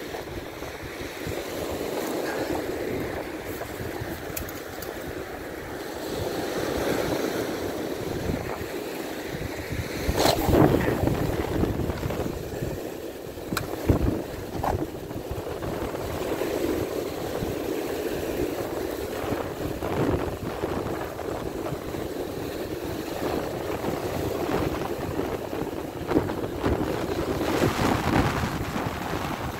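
Waves breaking and washing over a cobble beach, with wind buffeting the microphone. A few short, sharp knocks stand out, the loudest about ten seconds in.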